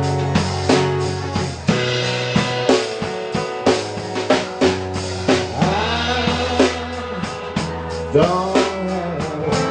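Live acoustic band: acoustic guitars strumming over a drum kit keeping a steady beat, with sliding, bending notes in the second half.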